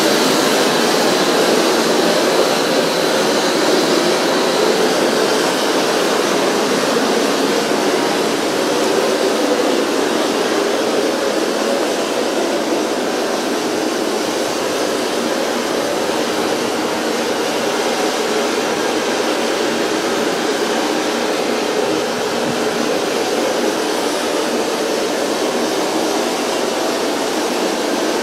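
A loud, steady rushing noise with no beat or clear pitch, easing off slightly toward the end.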